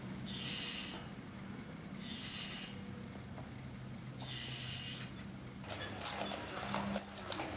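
Horse-drawn carriage on a town street: hooves clip-clopping and wheels and harness clattering, starting near the end and busier than what came before. Before it, four short hissing bursts about two seconds apart over a low steady hum.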